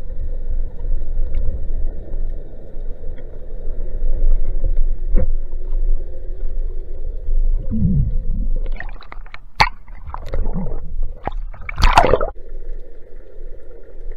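Underwater sound heard through an action camera's housing: a steady low rumble of moving water, then from about eight seconds in a few seconds of gurgling and sharp knocks, loudest near the end.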